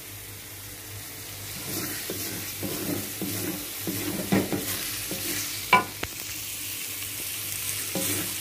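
A wooden spatula stirs and scrapes ground spice paste dry-frying in an aluminium wok. The scraping strokes start about two seconds in, and there is a sharp knock a little past the middle.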